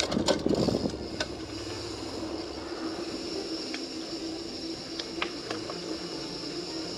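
Mountain bike setting off down a steep descent: a burst of clicking and rattling in the first second, then a steady rolling hiss with a few sharp ticks.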